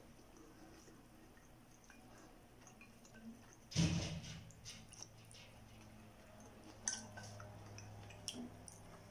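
Mostly quiet room with a few soft mouth noises: a short vocal sound about four seconds in, then small wet clicks and smacks.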